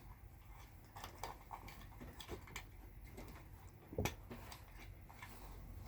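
Faint scattered clicks and small handling noises of hands working on motorcycle wiring, with one louder knock about four seconds in.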